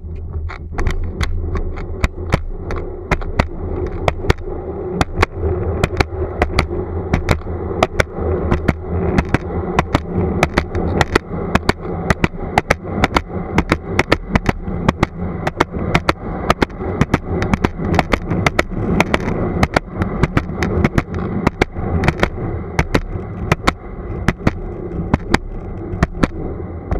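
Plastic cruiser skateboard rolling on pavement, heard from right under the deck: a steady rumble of the wheels with sharp clacks, about two a second, as the wheels cross cracks and joints in the path.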